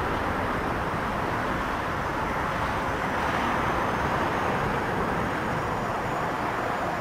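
Boeing 777's twin jet engines at takeoff power during the takeoff roll, heard from behind as a steady rushing noise. A faint steady whine comes in near the end.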